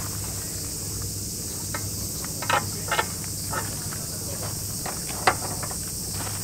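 Steady high buzz of summer insects, broken by a few sharp metallic clicks and clanks from the swing-out spare-tyre carrier on a Toyota Hilux Surf as it is unlatched and swung: two close together about two and a half to three seconds in, and the loudest about five seconds in.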